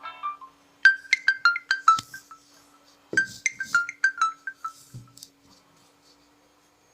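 A stock Nokia Lumia 925 phone tone: a short run of about eight quick, bright chime notes, played twice about two seconds apart.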